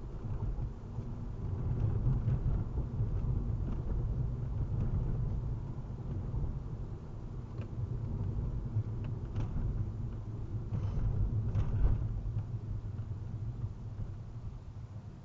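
Road and engine rumble heard inside a car's cabin while driving at about 30 mph, with a few sharp clicks and knocks in the middle, the loudest about twelve seconds in. The rumble eases near the end as the car slows.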